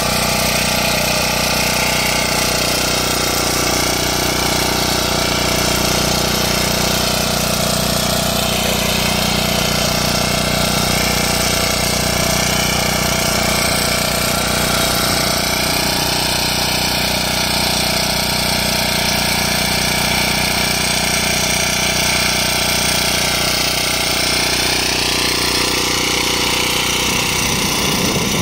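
Engine of a 9HP agri cart power weeder running steadily and loudly, its speed shifting slightly about 25 seconds in.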